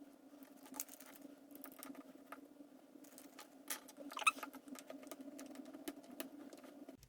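Faint small clicks and scratching of a tool working at the battery connector inside an opened iPhone 6S to unplug it, with the loudest scrape about four seconds in. A steady low hum runs underneath.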